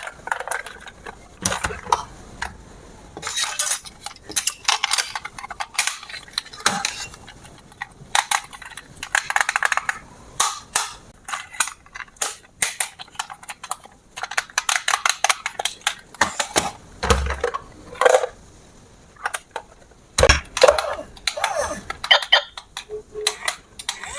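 Irregular clicks, knocks and clatter of hard plastic being handled, the sound of toy parts and packaging being unpacked, set out and fitted by hand.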